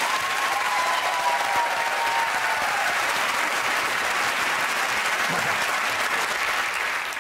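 Studio audience applauding steadily, dying away near the end.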